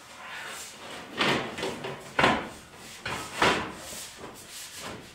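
Black steel stovepipe scraping and rubbing as the elbow is twisted and pushed into its joint at the wall, with three loud scrapes about a second apart and smaller rubs between.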